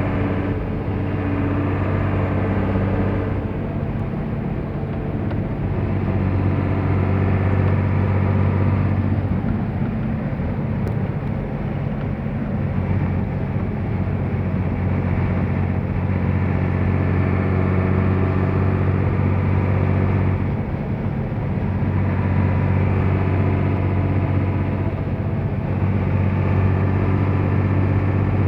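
Diesel engine of a 1990 Mercedes-Benz 1319 truck running loud under load on the road. The engine note falls off and picks up again a few times.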